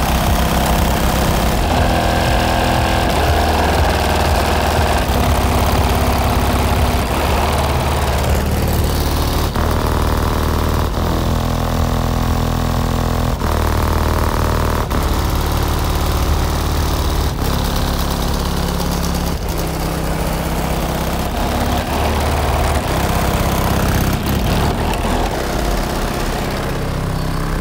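Bass-heavy music played loud through two Sundown ZV4 15-inch subwoofers on a Sundown Salt 6K amplifier, in a ported box tuned to 35 Hz, heard from outside the vehicle. The deep bass notes change every second or two.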